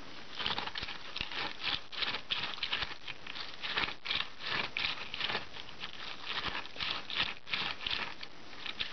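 Lemon half twisted and pressed by hand on an old plastic reamer juicer: a continuous run of quick rubbing, squishing strokes, a few a second.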